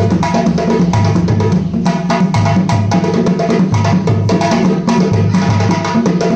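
Loud, drum-heavy music with a steady beat: a repeating bass line under sharp, quick percussion strokes.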